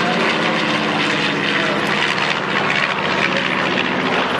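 Propeller aircraft engine running steadily, a loud, even drone that holds one pitch.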